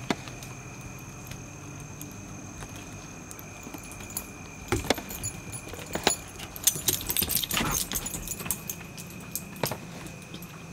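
Puppies' collar tags jingling as they move and play, with scattered knocks and clicks of paws on a wooden deck. The jingling is densest for a second or two past the middle. Two faint steady high tones hum underneath.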